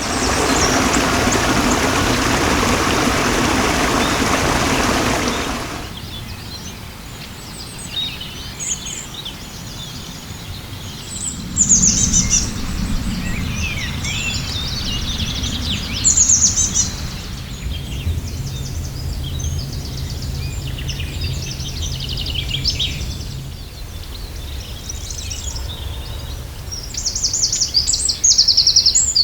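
Several wild birds singing and calling, with quick high trills that come and go throughout, over a steady low rumble. For about the first six seconds a loud, even rushing noise covers everything and then cuts off suddenly.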